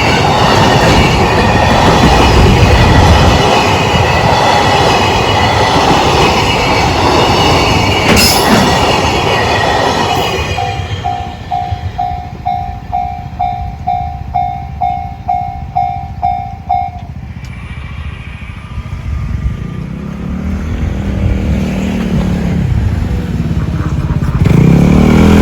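Freight train wagons rolling over the level crossing with clattering wheels, fading out about ten seconds in. The JR standard crossing alarm then rings about twice a second for six seconds and stops. Near the end a road vehicle drives up and passes.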